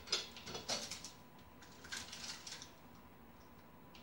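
Dry onion skin being peeled off by hand, crackling and rustling in short crisp bursts, several in the first second and a few more around two seconds in.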